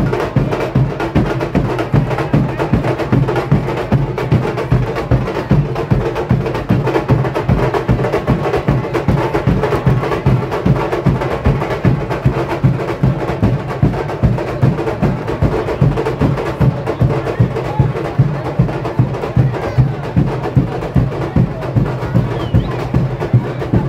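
Samba school bateria playing a samba rhythm: surdo bass drums on a steady pulse of about two beats a second, with snare drums and other percussion playing over them.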